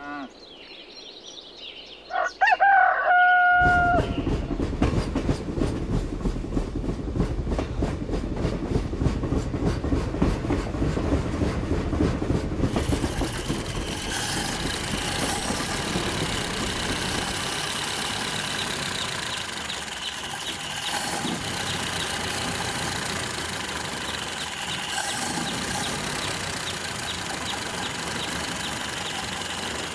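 A rooster crow about two seconds in, then a model steam locomotive chuffing in a fast, even rhythm. About thirteen seconds in the chuffing gives way to a steadier mechanical running sound with faint high tones.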